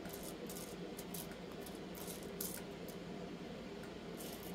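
Metal tweezers picking through small plastic charms in a compartmented plastic organizer box: scattered light clicks and scratches, the loudest about two and a half seconds in, over a steady low hum.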